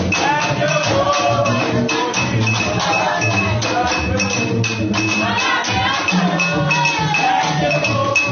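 Upbeat dance music with a quick, even percussion beat and a singing voice.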